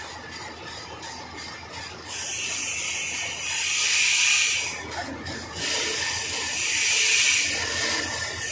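Wood-cutting machine cutting through wood: faint rhythmic ticking for about two seconds, then a loud hissing cut noise that swells and eases about every three seconds as the wood is fed through.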